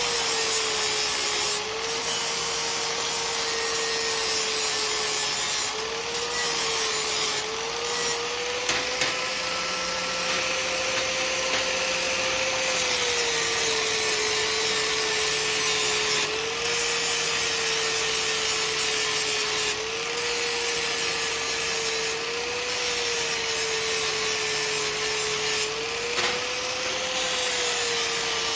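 Handheld electric grinder working metal in passes of a few seconds with short breaks: a hissing grind over the motor's hum, the motor pitch dipping slightly as it loads up.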